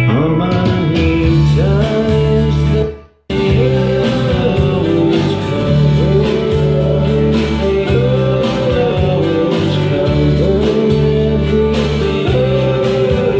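Guitar music played back from cassette on a Pioneer CT-W616DR deck and heard through the stereo's speakers. About three seconds in the music fades down to silence for a moment, then comes straight back.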